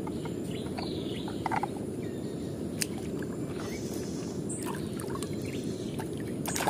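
Muddy water sloshing in a plastic tub as a hand moves through it: a steady low rush with a few light clicks.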